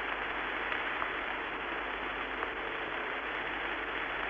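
Steady hiss of an open radio link between launch-control transmissions during the pre-launch countdown, even and unbroken.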